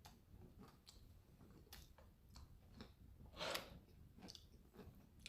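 Near silence with faint scattered clicks and small handling noises, and one brief rustle about three and a half seconds in.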